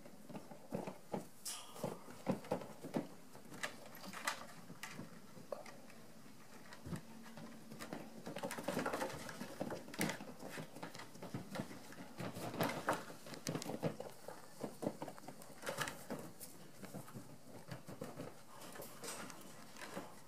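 Black bear cubs scrambling and wrestling on a corrugated plastic culvert pipe: irregular knocks, scratches and scuffles, coming in busy clusters.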